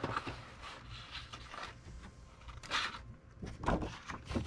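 Cardboard box lid being worked off a box, the card rubbing and scraping, with a few short, sharper rustles about three seconds in from the packing inside.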